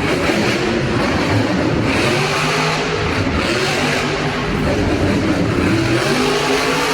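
Monster truck's supercharged V8 engine revving, its pitch rising and falling repeatedly, loud throughout.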